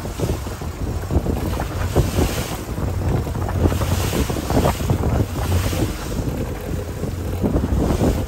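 Wind buffeting the microphone over water rushing and slapping against the hull of a small fishing boat under way, with the outboard motor running steadily underneath.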